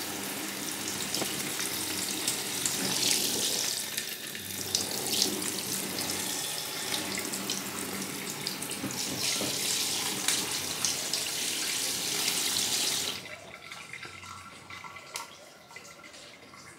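Water from a pull-out kitchen faucet's spray head running into a stainless steel sink, the stream shifting as the spray head is moved by hand. The tap is shut off about thirteen seconds in.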